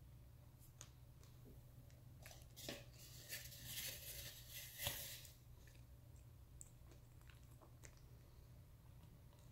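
A person biting and chewing a chunk of raw white crumbs kaolin clay close to the microphone: a cluster of short, crackly chews in the middle, the loudest about five seconds in.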